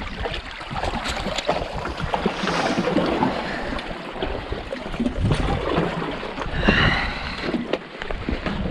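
Sea water sloshing and splashing irregularly against shoreline rocks as a large hooked squid is drawn in at the water's edge, with a louder splash near the end.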